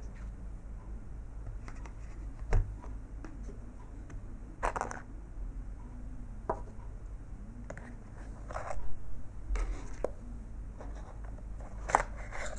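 Smartphone box and accessory packaging handled by hand: a few sharp plastic or cardboard clicks and brief paper-and-plastic rustles.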